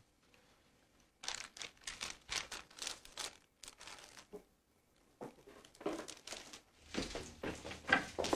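A plastic bag crinkling as it is handled, in two bouts of crackling starting about a second in. Near the end a door opens, with a low rumble under the crinkling.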